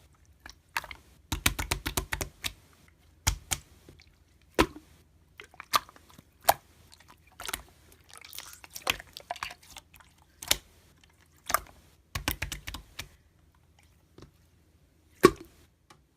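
Close-up crunchy chewing and biting: irregular crisp crackles, some single and some in quick clusters, with quiet pauses in between.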